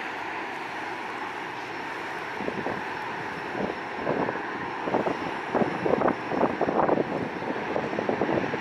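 Jet airliner engines at takeoff thrust as a twin-engine airliner departs: a steady rush, with irregular crackling coming in about two and a half seconds in and loudest toward the end.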